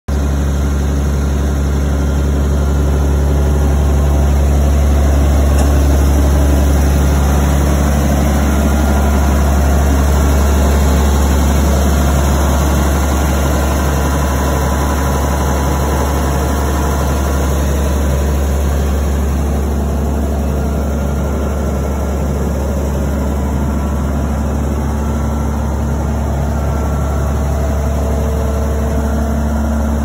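CLAAS Dominator 98 combine harvester's diesel engine running steadily at idle, a deep, even hum with the machine's drives turning over.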